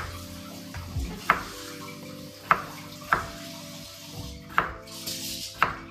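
Kitchen knife cutting peeled potatoes into small cubes on a wooden cutting board: about six sharp knocks of the blade striking the board, unevenly spaced, over soft background music.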